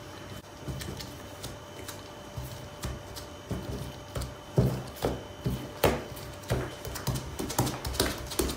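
Plastic-gloved hands patting and pressing balls of risen pide dough flat on a wooden countertop. Light taps at first, then a quick run of soft slaps and thuds from about halfway.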